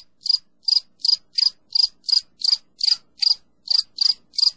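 A calling animal's high chirps, repeated evenly about three times a second.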